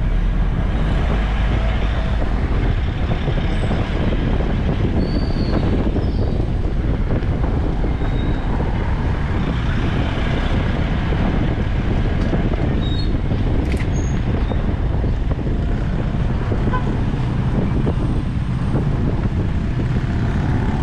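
Street traffic: motor vehicle engines running and passing in a steady, loud wash of road noise.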